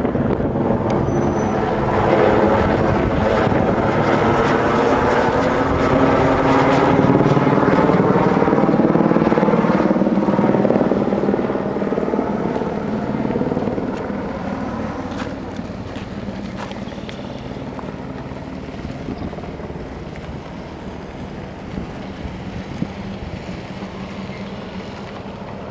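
Firefighting helicopter carrying a slung water bucket flies past overhead. The rotor and engine are loud for the first ten seconds or so, with the pitch sliding as it passes, then fade steadily as it flies away.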